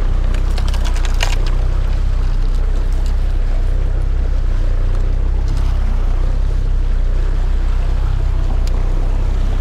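Outboard motor running steadily at trolling speed, with water rushing past the hull. A few sharp clicks about a second in.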